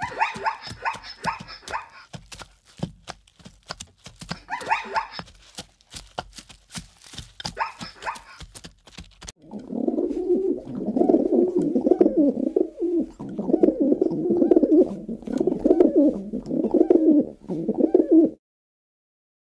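Animal calls in two parts: first three short bursts of rapid, higher-pitched pulsed calls among many sharp clicks, then, after a cut, about nine seconds of continuous low calls that stop suddenly near the end.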